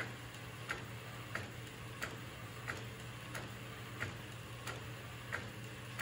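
Epson P405 DTF printer running a print job: a sharp click about every two-thirds of a second as the print head carriage sweeps back and forth, over a low steady hum.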